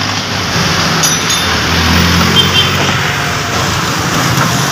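Mitsubishi Adventure's engine idling steadily, a low hum under a steady hiss.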